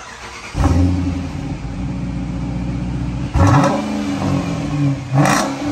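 Chrysler 300S's 5.7 L HEMI V8 firing up through an exhaust with the mid-muffler and resonator deleted, settling into a loud idle, then revved twice in quick blips.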